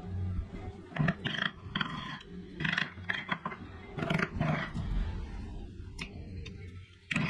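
A woodworking tool working wood in short, irregular noisy strokes, roughly one or two a second, over a steady low hum.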